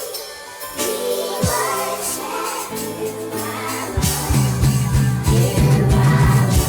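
Live gospel worship music: held chords with choir voices, then about four seconds in the full band comes in with a steady drum beat and bass.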